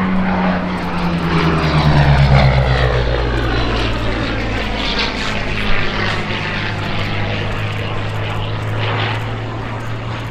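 Supermarine Spitfire Mk Vc's Rolls-Royce Merlin V12 engine and propeller on a display pass. The engine note drops in pitch about two seconds in as the aircraft goes by, loudest at that point, then carries on as a steady drone that slowly fades.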